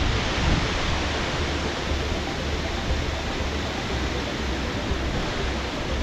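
Strong wind roaring across the microphone: a steady rushing noise with heavy low buffeting that swells and drops every second or so.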